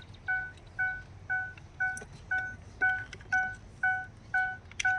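Ford Freestar's warning chime beeping steadily, about two short beeps a second, with a few faint clicks.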